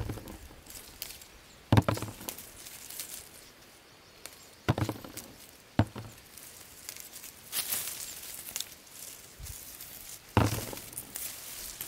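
Small fruits being picked by hand from a tree: four sharp snaps, loudest about two seconds in and near the end, with leaves and twigs rustling in between.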